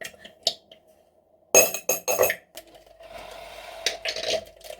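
A quick run of sharp, ringing clinks of hard objects knocking together about one and a half seconds in, after a few light ticks, followed by softer rustling.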